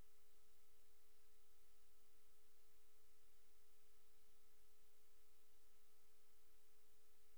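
Faint, steady electronic whine, a constant tone with a weaker higher one above it, over low hum and hiss: the electrical noise floor of a webcam microphone with nothing else sounding.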